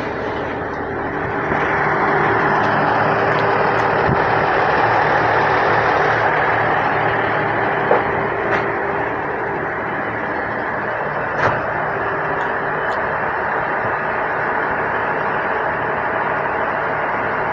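Diesel railcar (Noto Railway NT300) standing at a platform with its engine running, a steady mechanical drone, with a few short clicks around the middle.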